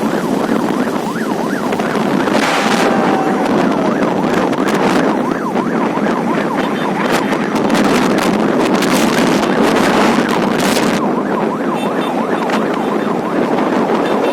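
Steady rush of wind and road noise from a moving vehicle, with a police siren wailing faintly underneath in repeated rising and falling sweeps.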